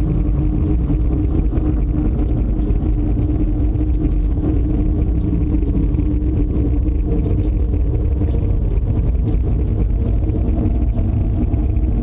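Loud, steady low rumble with a droning hum running through it. This is the unexplained noise the household fears is coming close, and one of them takes part of it for wind.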